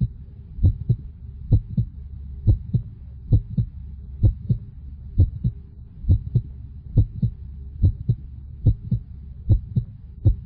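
Heartbeat sound effect: steady double thumps, lub-dub, a little over one beat a second, over a low steady drone.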